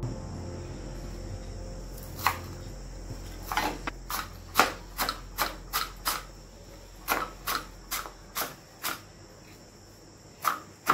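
Kitchen knife chopping fresh coriander leaves on a wooden cutting board: sharp knocks of the blade on the board in irregular runs of about two a second, starting about two seconds in.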